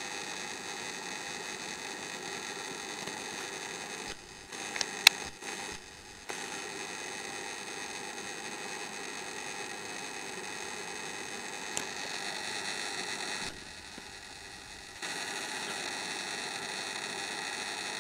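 A 12 V to 220 V power inverter running at light load with its cooling fans and a steady electrical buzz and whine made of several fixed tones; the owner takes this noise for abnormal. The sound dips briefly a few times, and a few sharp clicks come through, the loudest about five seconds in.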